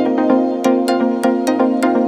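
Electronic background music with sustained synth chords and a steady percussive beat.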